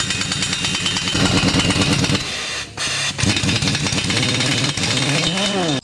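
Impact wrench hammering at track pad bolts in a long, continuous rattle. It breaks off briefly about two and a half seconds in, then resumes, and its pitch swings up and back down just before it cuts off.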